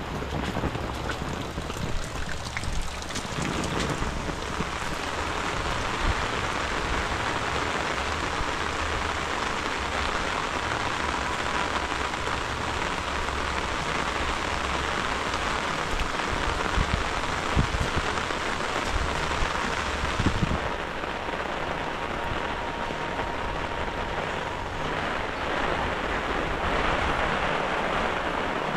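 Heavy rain falling steadily, a dense even hiss of downpour.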